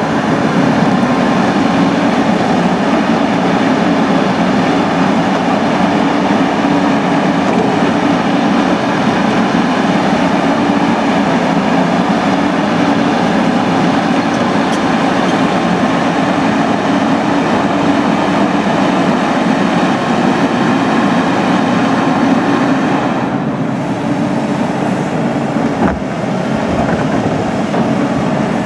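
Cat 320CL tracked excavator's diesel engine and hydraulics running under load as it digs with the bucket: a loud, steady drone that eases briefly near the end.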